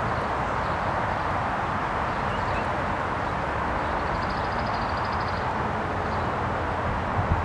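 Steady outdoor background noise, an even hiss like distant traffic, with a short high trill about four seconds in.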